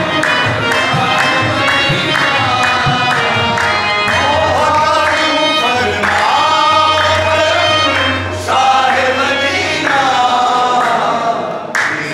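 Live qawwali: several men singing together over harmoniums, with tabla keeping a steady driving beat.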